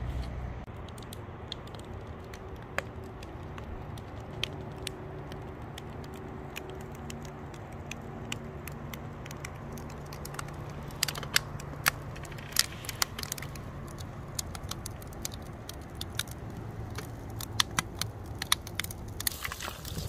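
Scattered sharp clicks and crackles, more frequent in the second half, over a faint low steady hum.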